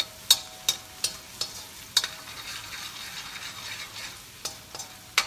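Garlic sizzling in hot oil in a stainless steel wok, frying toward golden brown. A metal spatula stirring it clanks against the wok about eight times, each strike ringing briefly, the loudest near the start, about two seconds in, and at the very end.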